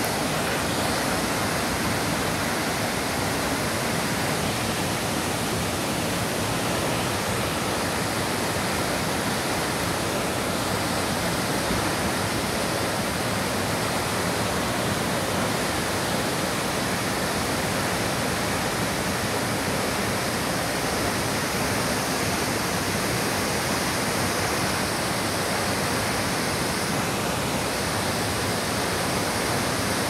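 Velo de Novia waterfall, a tall cascade, with its falling water rushing in a steady, unbroken roar.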